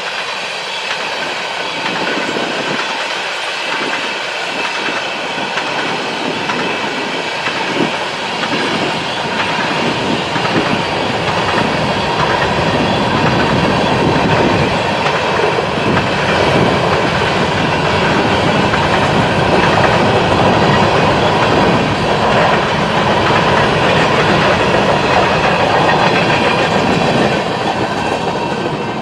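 BNSF freight train rolling past, steel wheels clacking over the rail joints with a steady metallic ringing over the rumble of the cars. It grows louder over the first half and then holds loud.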